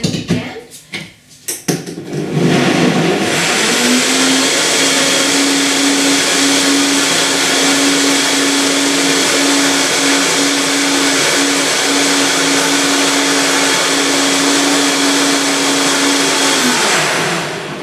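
A few knocks as the Vitamix blender is set going, then its motor spins up with a rising whine and runs loud and steady at high speed, blending frozen cherries, blueberries, bananas and kale into a thick smoothie. Near the end the motor is switched off and winds down.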